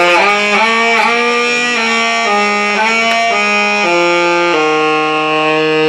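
Saxophone solo played live: a run of short notes, then one long held note from about four and a half seconds in.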